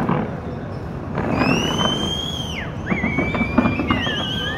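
Several high whistling tones that glide up, hold and then drop away, overlapping and one of them wavering, over a steady low rumble of crowd and fireworks noise.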